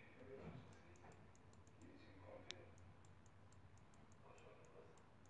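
Near silence with faint light clicks and soft strokes of a stylus writing on a digital tablet, one sharper click about two and a half seconds in.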